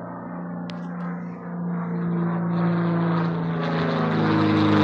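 A Sonex light aircraft with a six-cylinder Jabiru engine droning overhead in flight, the steady propeller and engine note growing louder as the plane comes closer.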